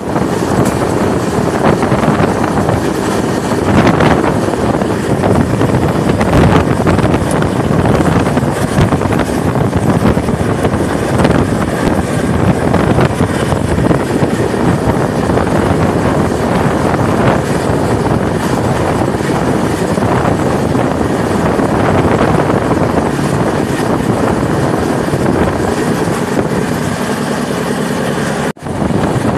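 Steady running noise of a passenger train moving at speed, heard loud from an open doorway: wheels on the rails and air rushing past. The sound briefly drops out near the end.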